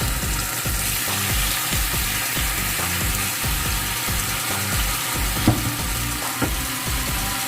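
Marinated chicken sizzling as it pan-fries, a steady hiss with one sharp knock about five and a half seconds in.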